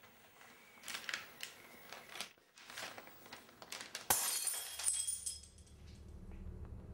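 Paper rustling and crackling, then about four seconds in a sudden smash of breaking glass, with high tinkling shards for about a second. A low hum then slowly grows louder.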